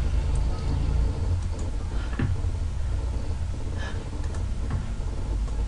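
Steady low background rumble, with a few faint clicks about two, four and four and a half seconds in.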